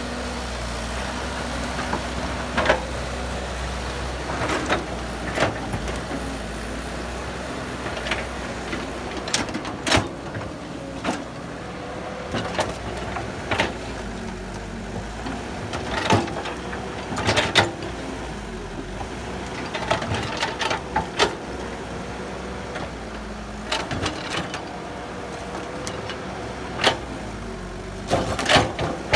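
Heavy diesel engine running steadily, with irregular sharp metallic clanks and knocks.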